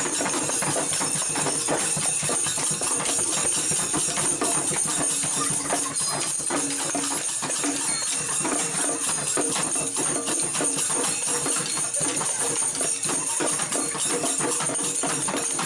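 A loud, dense din of music with constant jangling percussion, full of quick strokes, that starts and cuts off abruptly.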